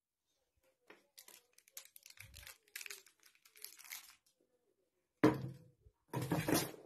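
Cardboard box rustling and scraping as it is handled, then two loud cardboard crunches near the end, a short one and a longer one, as a cat lands on the box's top flaps and pushes in through them.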